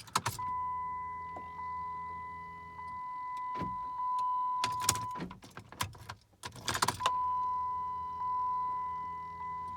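Ignition key turned twice in a 2005 Chrysler 300 with a no-crank, no-start fault. Each time, after a jangle of keys, a steady high-pitched buzzing tone sounds for several seconds with a low hum under it at first, and the engine never cranks. The owner wonders whether the starter or the fuel pump is at fault.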